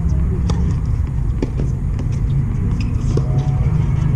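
Wind buffeting the microphone as a loud, fluttering low rumble, with several sharp knocks of tennis balls on the court.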